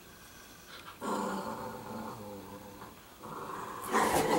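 Italian Greyhounds growling in play while rough-housing: one growl starting about a second in, then a louder bout of growling near the end.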